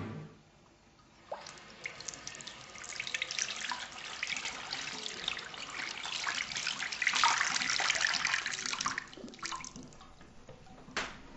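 Water running from a chrome bathroom sink tap and splashing into the basin and over hands being washed. The water starts about a second and a half in and tails off about nine to ten seconds in, and a short click comes near the end.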